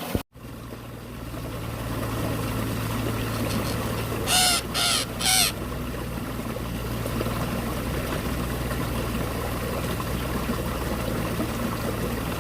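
A bird gives three short calls in quick succession, about half a second apart, over the steady rush of running water.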